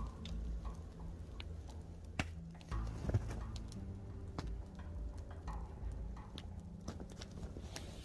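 Snow being scraped and packed by hand into a stainless steel mug: scattered soft crunches and small clicks against the cup, with a louder knock about three seconds in, over a steady low wind rumble.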